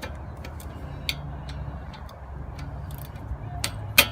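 Scattered metal clicks and clinks from wrench work on a brake caliper's bolts, with a louder ringing metal clank near the end, over a steady low hum.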